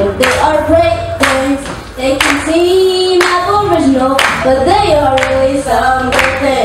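Live singing led by a woman's voice, with hand claps keeping a beat about once a second.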